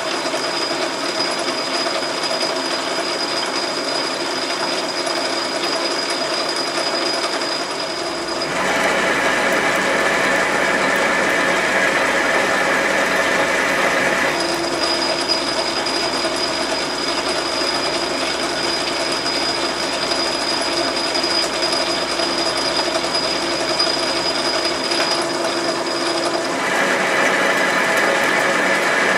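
Metal lathe running, probably in back gear, its gear train whirring steadily while a single-point tool chases internal threads in a chuck backing plate. The note changes about eight seconds in, changes back about fourteen seconds in, and changes again near the end.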